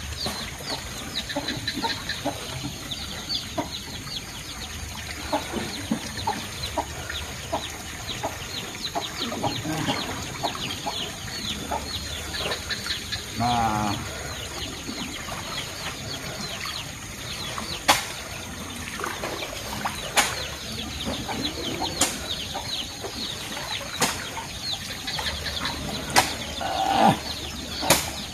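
Pond water splashing and sloshing as a man wades and handles a fish-holding net, with chickens clucking in the background. A few sharp clicks come about every two seconds in the second half.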